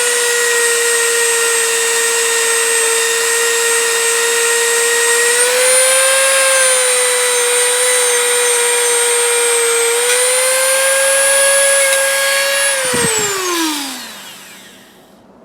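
Electric wire wheel running under load as steel crimpers are wire-brushed clean, a steady whine that shifts slightly in pitch twice. About 13 seconds in it is switched off and spins down with a falling whine.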